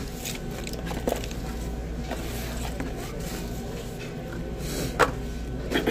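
Fast-food restaurant room noise: a steady low hum under faint background voices, with a few short knocks or clicks, the sharpest about five seconds in.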